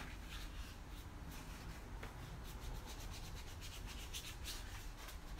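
Paintbrush rubbing and dragging wet paint across paper: faint, repeated irregular strokes.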